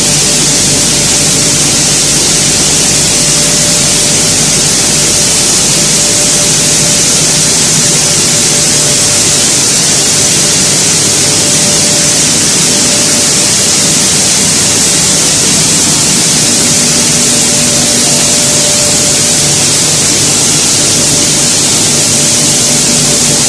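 Maize milling plant running: a loud, steady hiss-like roar of the machinery with constant low hums underneath, and an extra hum tone that comes in about two-thirds of the way through.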